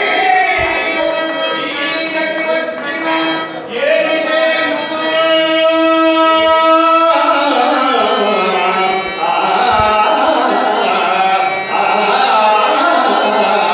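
A male stage actor singing a padyam (a verse of a Telugu mythological drama) in a slow, drawn-out Carnatic-style melody. He holds one long note for about three seconds and then runs into winding, ornamented phrases. A harmonium accompanies him, and a dholak taps now and then.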